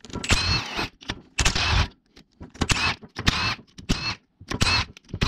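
Cordless power wrench on a long extension, run in about seven short bursts with a whine that bends in pitch, spinning out the 12 mm case-half bolts of a Subaru boxer short block.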